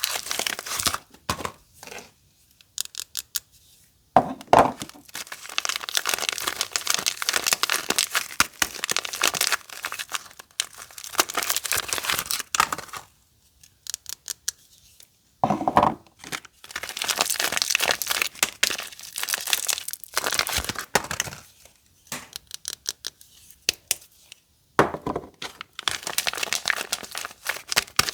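Soap wrappers being crinkled and torn open, close up. Long stretches of dense crackling are broken by a few short pauses.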